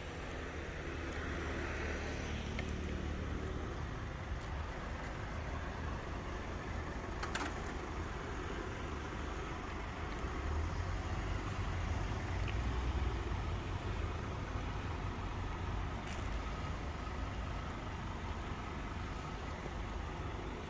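A motor vehicle's engine running steadily with a low rumble, with a couple of short sharp clicks.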